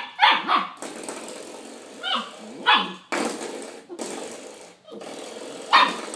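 Puppy barking in short sharp barks, about six times, at a spring door stop. Between the barks there is a steady buzzing twang, the sound of the door stop's spring being knocked and left vibrating.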